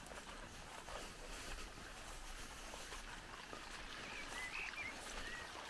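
Faint outdoor ambience with a few short bird chirps near the end.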